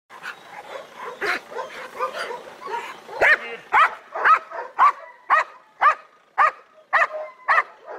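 Young Belgian Malinois in early bark training, at first giving irregular short yips and whines, then from about three seconds in barking steadily about twice a second, some nine barks.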